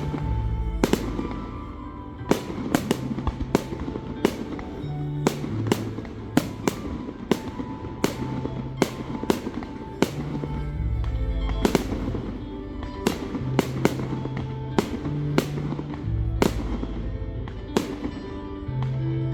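Fireworks bursting overhead in a rapid, irregular string of sharp bangs, about one or two a second, over music with a steady bass line.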